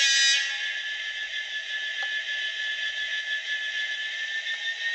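Class 66 diesel engine sound from an ESU LokSound V5 nano decoder, played through a tiny sugar cube speaker in an N gauge model locomotive standing still, with a steady whine. A brief, louder blast about half a second long comes at the very start, and near the end the engine note begins to rise.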